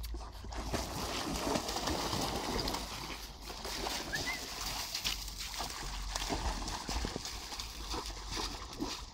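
Dogs splashing and wading through shallow river water, a steady wash of water noise broken by irregular slaps and sloshes as they bound through it.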